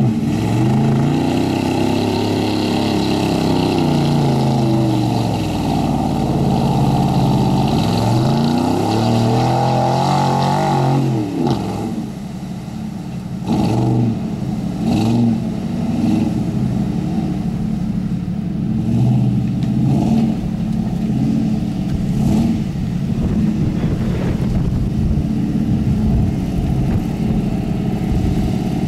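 Large vehicle engine of a homemade monster truck/boat revving, its pitch rising and falling several times, then dropping about 12 seconds in to a lower steady run with a few brief blips of throttle.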